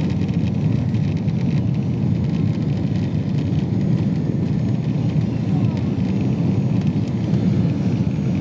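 Steady low roar of a Boeing 777-200's engines and airflow, heard inside the passenger cabin on approach to landing.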